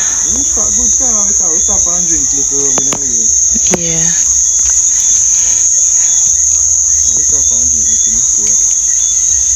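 A loud, steady, high-pitched trill of crickets that never lets up. Quieter voices talk underneath it in places.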